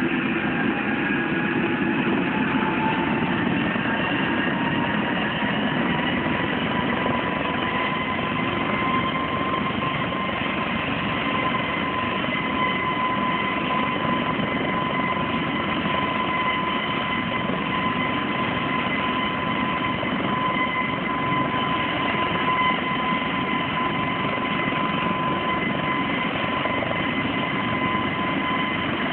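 Helicopter running steadily: a constant noisy drone with a high turbine whine that rises a little in pitch over the first several seconds, then holds level.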